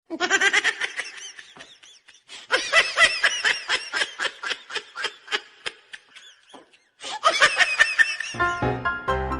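High-pitched laughter in quick rhythmic bursts, in three runs with short breaks. Near the end, keyboard music comes in.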